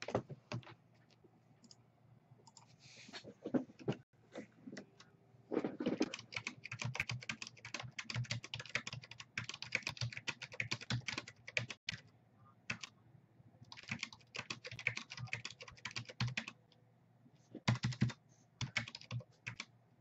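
Typing on a computer keyboard: a few scattered keystrokes at first, then several runs of rapid keystrokes, each a few seconds long, with short pauses between.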